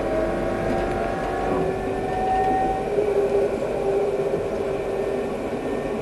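Alstom Citadis 302 tram running, heard from on board: a steady rumble of wheels on the rails under the whine of the traction motors, which rises a little in pitch and then holds steady.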